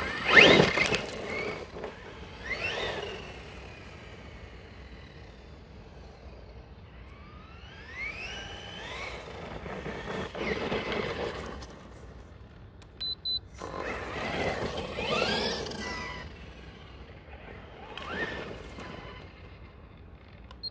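Maverick Quantum MT Flux RC monster truck's brushless electric motor whining up in pitch in several bursts as it accelerates hard. The first burst, right at the start, is the loudest; later ones are fainter as the truck runs off down the path and comes back.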